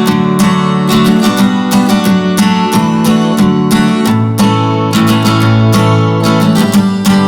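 Background music led by a strummed acoustic guitar, with regular rhythmic strokes.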